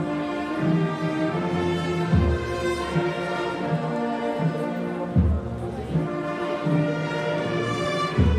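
A wind band plays a slow funeral march, with sustained brass chords and a deep drum stroke about every three seconds.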